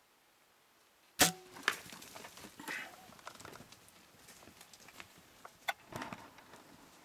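A sudden sharp crack, then scuffling and knocks of impala hooves on dry, dusty ground as the startled impala bolt.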